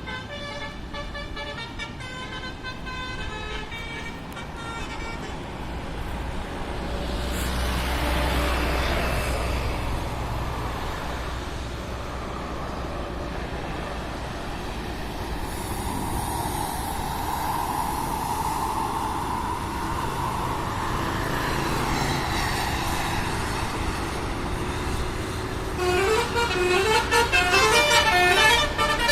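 A tour bus's telolet basuri horn, a multi-tone musical air horn, plays a quick tune of stepped notes. The tune sounds for the first few seconds and again near the end. In between there is engine and road noise, with a low rumble swelling about eight seconds in.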